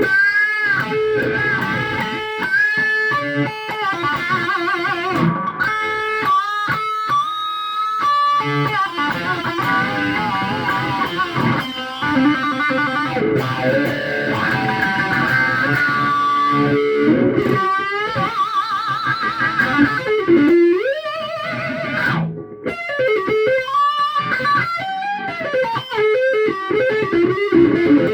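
Epiphone SG electric guitar with twin humbuckers played through a Marshall JCM 2000 DSL head with distortion: a lead passage of sustained notes shaken with vibrato, pitch slides and quick picked runs.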